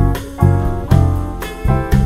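Instrumental jazz quartet recording: piano chords over deep electric bass notes, with strong accents about twice a second.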